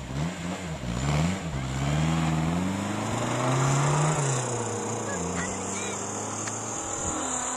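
Engine pulling a paraglider tow line, its pitch climbing and getting louder over the first few seconds, then easing down and holding steady as the line takes up tension to raise the wing.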